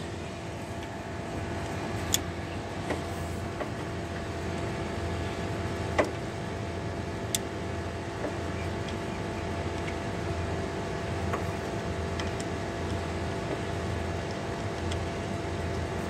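Steady mechanical hum in the background, with a few sharp, isolated metallic clicks and knocks as a ratchet and wrench tighten the bolts holding a condenser fan motor to its steel mounting bracket.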